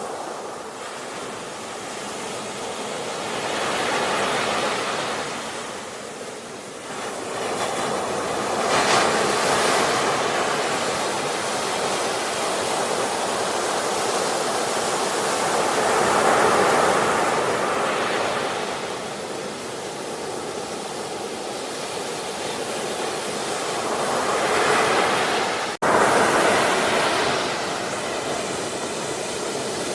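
Sea waves breaking and washing up the shore, a steady rush that swells and eases every several seconds, with a momentary cut-out near the end.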